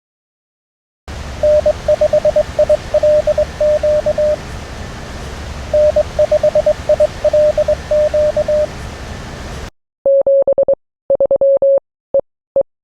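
Morse code (CW) heard on a ham radio receiver: a single steady tone keys out a callsign twice over band hiss. About ten seconds in, the hiss cuts off and a clean keyed tone sends a few more Morse characters.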